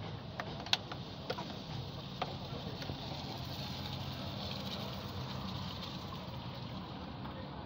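A few sharp metallic clicks and taps from pliers and parts being handled in a car's engine bay, over a steady low background hum.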